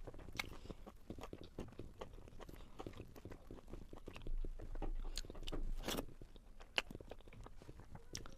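Close-miked chewing and biting of crunchy food: a dense, irregular run of crunches and wet mouth clicks, louder for a couple of seconds around the middle, with one sharp crack near the end.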